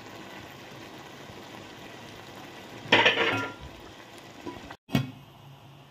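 Chicken cooking in a thick Chettinad masala in a pot, with a low steady sizzle. About three seconds in comes a short, louder burst of stirring and sizzling, and a smaller one near the end.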